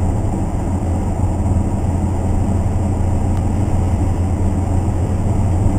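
Steady low drone of a car at highway speed, engine and tyre road noise heard from inside the cabin.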